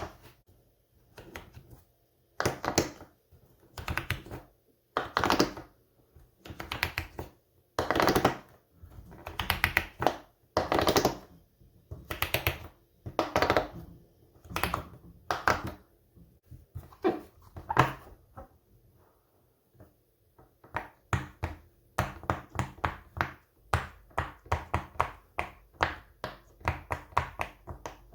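Silicone pop-it fidget toy being popped by hand: runs of soft pops in groups about every second and a half, a short pause about two-thirds through, then a quicker steady run of single pops several a second.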